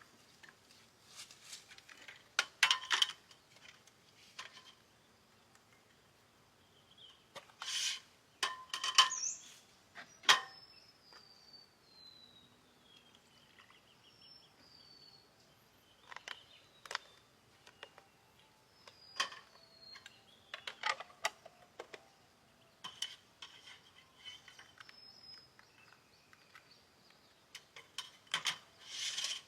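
Irregular clinks and knocks of dishes and utensils being handled. A bird gives a few thin descending whistled notes in the background.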